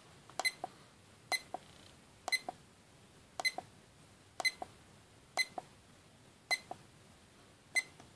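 FanJu FJ3523 digital alarm clock's setting button pressed eight times, about once a second. Each press gives a short high beep and a click, as the clock steps through its settings.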